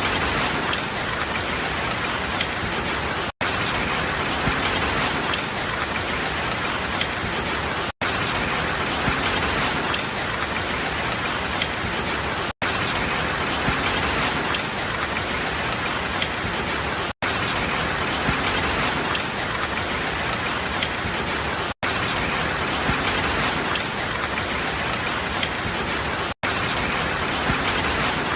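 Steady rain falling on a surface, with fine scattered drop ticks. The sound cuts out for an instant about every four and a half seconds.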